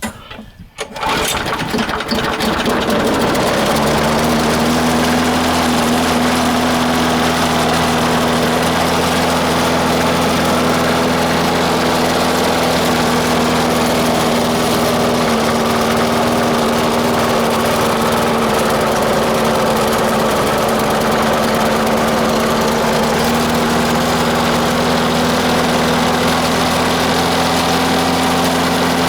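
Four-horsepower Briggs & Stratton engine on a Murray walk-behind lawnmower, cold-started: it catches about a second in, climbs over the next couple of seconds and settles into a steady run.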